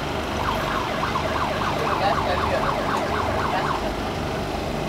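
A siren yelping in quick up-and-down sweeps, about four a second, over steady street noise; the yelping stops near the end.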